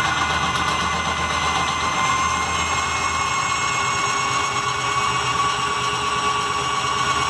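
Electric drill spinning a washing-machine motor that is wired as a generator, running with a steady whine. The generator is under electrical load, putting out about 155 watts from one stator.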